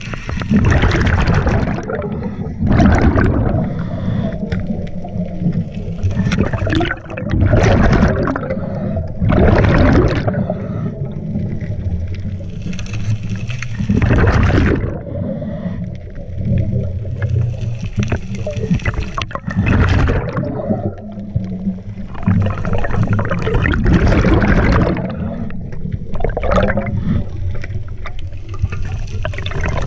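Scuba diver breathing through a regulator underwater: rushes of exhaled bubbles every few seconds over a steady low rumble.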